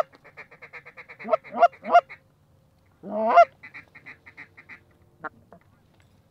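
Canada goose honking: three loud rising honks close together about a second in, then one long rising honk about three seconds in, with rapid quieter clucks running between them. A single short tick follows near the end.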